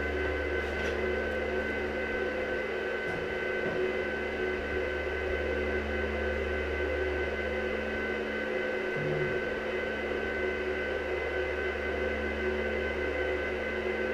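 Steady electrical hum and whine of a switched-on arc welding machine and its cooling fan, with no arc burning.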